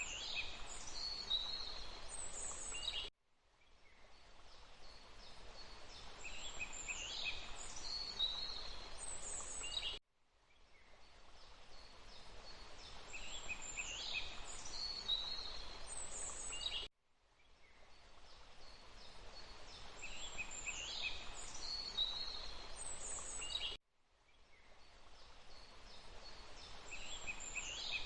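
Forest ambience of steady running water with songbirds chirping over it. It is a short loop that repeats about every seven seconds, each time cutting off abruptly and fading back in.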